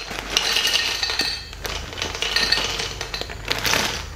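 Dry rigatoni being poured from its bag onto a ceramic plate, the hard pasta tubes clinking and clattering against the plate in a run of sharp clicks, with the bag rustling in between.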